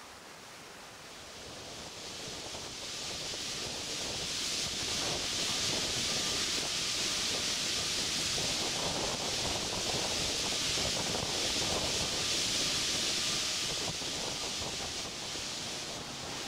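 Crushed stone pouring from a shiploader's conveyor chute into a lake freighter's cargo hold: a steady rushing hiss that swells a couple of seconds in and eases near the end.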